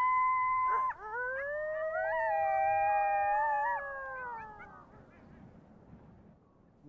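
Coyotes howling together. A short howl opens, then long overlapping howls at different pitches rise, hold and slowly fall, fading out about five seconds in.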